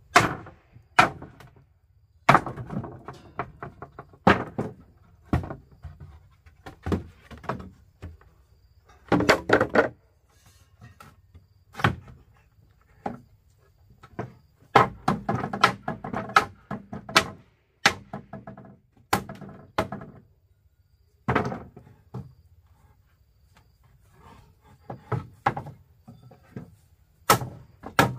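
Irregular knocks and thuds from manual demolition work, some single strikes and some quick rattling clusters, coming every second or two with short gaps between them.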